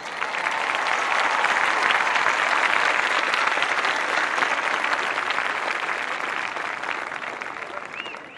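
Large outdoor audience applauding and cheering after the music ends. The applause swells in the first couple of seconds, then slowly fades, with a short high whistle near the end.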